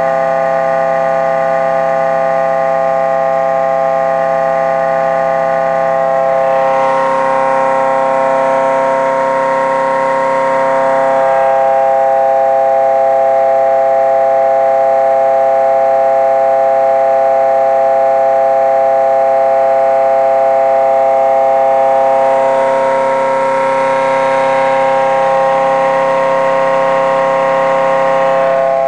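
Home-built pulse motor running at low speed, giving a loud, steady, pitched whine with many overtones as its coil is pulsed. A hissy edge comes in over the whine about seven seconds in and again about two-thirds of the way through.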